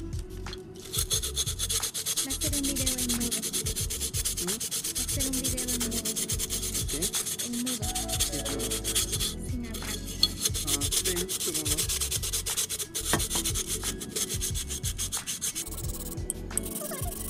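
Sandpaper rubbed rapidly back and forth over the cut rim of a glass wine bottle, smoothing the sharp edge left by cutting. The scratchy strokes start about a second in and pause briefly about halfway.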